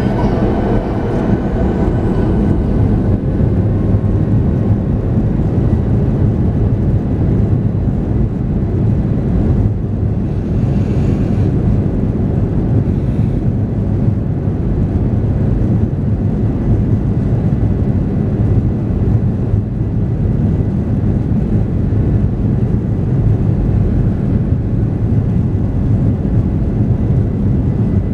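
Jet airliner cabin noise heard from a window seat over the wing: the engines run with a steady, unchanging rumble as the aircraft rolls slowly on the ground.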